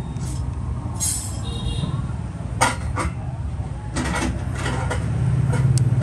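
A few sharp metal clicks from a slim wood-clad Zippo lighter's hinged lid being snapped open and shut, the loudest a close pair about two and a half seconds in. A steady low hum runs underneath.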